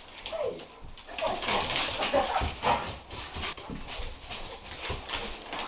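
Pet dog whining and whimpering in short rising and falling cries while playing, with scuffling and light knocks throughout.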